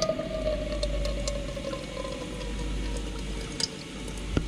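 Diesel draining from the bottom valve of a fuel filter water-separator bowl into a measuring jug, a running flow with a slowly falling tone. It is drained to check for water, and the fuel runs clean. A few sharp clicks near the end.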